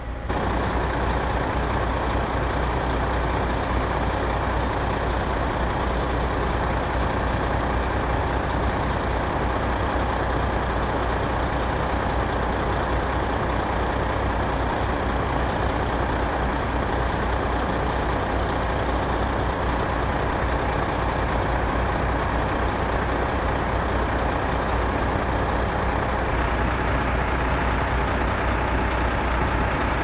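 Fire engine's diesel engine running steadily at the scene, a constant low hum under a broad rush of mechanical noise, while it supplies water through hoses laid to the ladder truck.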